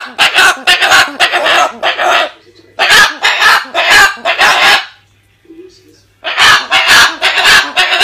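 Umbrella cockatoo calling loudly in rapid series of harsh squawks and voice-like babbling, with a pause of about a second and a half before the calls start again.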